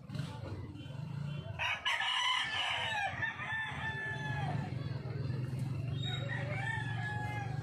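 Roosters crowing: a loud crow about two seconds in and a fainter one near the end, over a steady low hum.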